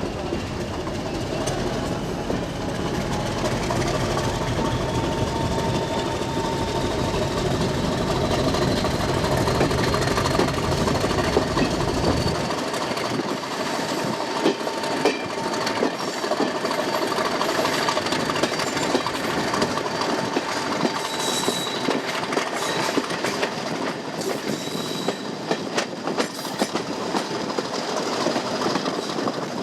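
Diesel-hauled heritage train running on the rails, with the clickety-clack of wheels over rail joints and a faint high squeal slowly rising in pitch. The deep rumble drops away abruptly about twelve seconds in.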